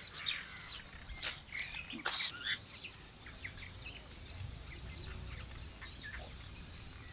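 Outdoor ambience of small birds chirping, with short high trills repeating now and then, over a low steady rumble.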